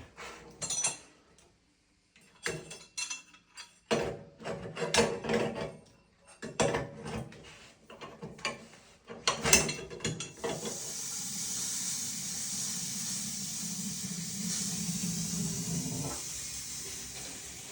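Knocks and clatter of hand work on a hot water cylinder, then from about ten seconds in a steady hiss of air escaping from the plumbing as the cylinder refills after an immersion heater element replacement.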